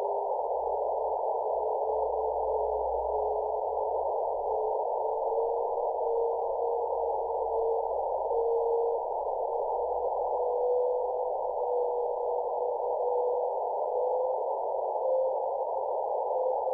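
Radio receiver recording of the LES-1 satellite's faint signal: a thin tone that drifts slowly upward in pitch within a steady band of receiver hiss.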